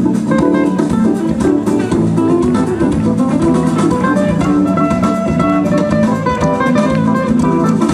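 Live band playing an instrumental passage, guitar to the fore over a drum kit.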